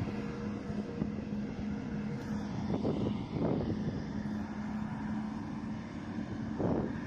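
A Sukhoi Superjet 100's twin PowerJet SaM146 turbofan engines running while the airliner is on the ground: a steady hum over a continuous rush. There are brief swells of noise about three seconds in and again near the end.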